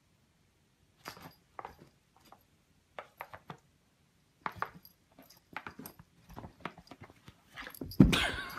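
Irregular short clicks and taps from a cat pawing at a fish game on a tablet touchscreen, starting about a second in. A louder thump comes near the end.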